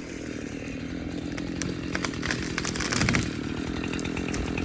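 Two-stroke chainsaw running steadily, growing a little louder, with scattered light clicks.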